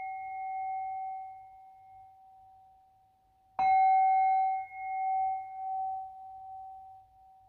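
A bell-like metal tone rings and slowly fades, then is struck again about three and a half seconds in, its ring wavering in loudness as it dies away.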